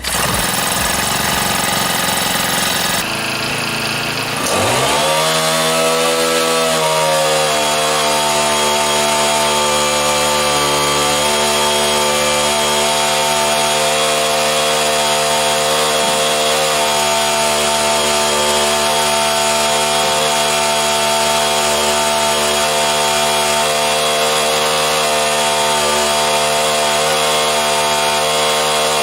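Small petrol engine of an internal-combustion rail drilling machine, revving up about five seconds in and then running steadily at high speed.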